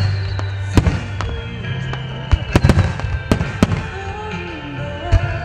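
Starmine fireworks barrage: aerial shells bursting with about eight sharp bangs, several in quick succession between two and four seconds in, over music playing.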